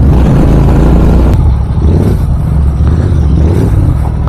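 Royal Enfield Continental GT650's parallel-twin engine running steadily while ridden. Wind noise on the microphone eases about a second and a half in.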